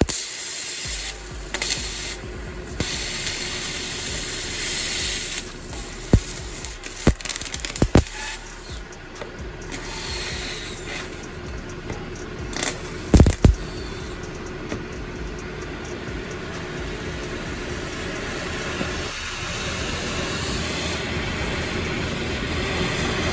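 Oxy-fuel welding torch flame hissing steadily against the steel frame rail as a boxing plate is gas-welded on. A few sharp metallic knocks come through, the loudest about halfway through.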